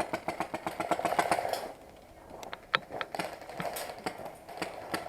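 Airsoft gun firing a rapid full-auto burst of about ten shots a second, lasting under two seconds, followed by scattered single shots.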